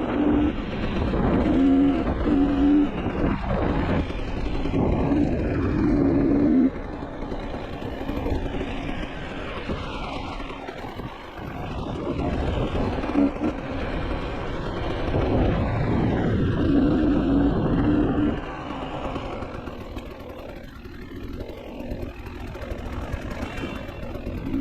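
Dirt bike engine revving up and down as it is ridden along a rough trail, its pitch rising and falling with the throttle. The audio is sped up by half, which raises the pitch.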